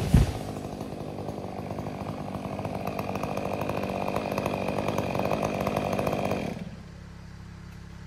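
A heavy thud right at the start as the felled tree stem hits the ground, then a chainsaw running steadily. The saw shuts off about six and a half seconds in, leaving a quieter low engine hum.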